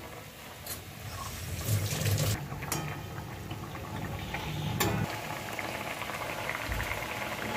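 Mustard gravy with fried tyangra fish bubbling in a kadai over a gas flame, settling into a steady crackling simmer after about five seconds as the gravy comes to the boil. A few dull knocks sound in the first half.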